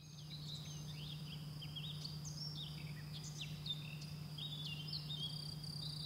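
Outdoor nature ambience: small birds chirping and twittering in many short notes over a steady high-pitched insect trill and a low steady hum, fading in at the start.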